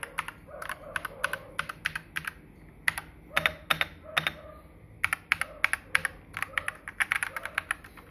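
Typing on an AKKO MG108 mechanical keyboard in quick bursts of keystrokes with short pauses between them. The keystrokes sound deep and solid, dampened by the foam lining inside the case.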